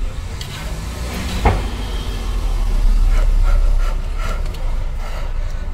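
Steady low rumble inside a car's cabin, with a single sharp knock about a second and a half in and a few faint clicks later.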